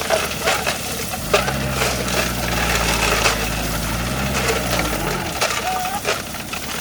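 An engine that rises in pitch and level about a second and a half in, holds, then falls back about five seconds in. Sharp knocks and clinks sound throughout.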